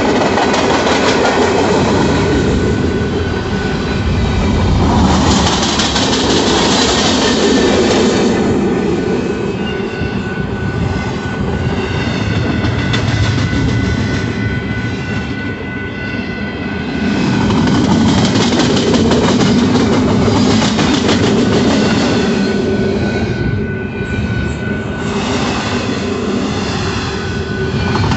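Freight cars of a mixed freight train rolling past close by, their wheels clacking over the rail joints in a continuous loud rumble that swells and eases as different cars go by.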